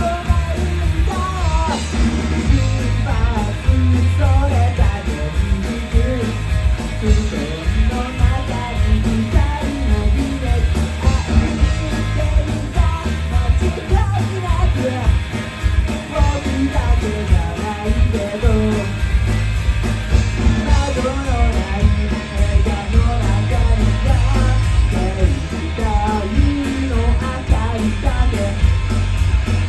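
Cover band playing a rock song: electric guitar, heavy bass and drums with cymbals, possibly with a melodic line that wavers.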